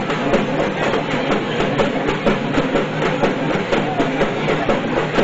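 Drums beating a fast, even rhythm of about three or four strokes a second, over the noise of a large crowd.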